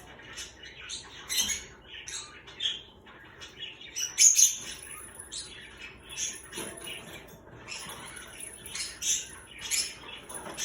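Pet birds chirping and squawking indoors in short, scattered calls, the loudest cluster about four seconds in.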